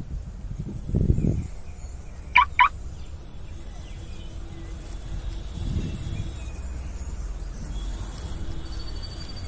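Small plastic toy cars pushed and rolling on rough concrete, a low rumbling scrape about a second in and again near six seconds. Two sharp, high chirps in quick succession at about two and a half seconds are the loudest sound.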